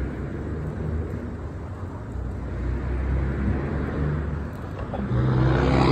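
Motor vehicle engine running with a low, steady rumble, growing louder about five seconds in.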